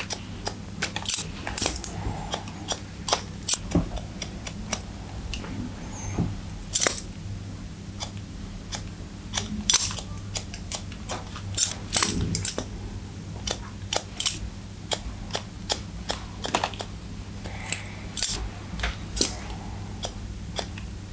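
Hairdressing scissors snipping through wet hair as a fringe is cut and textured: many quick, irregular snips, several a second, over a faint steady low hum.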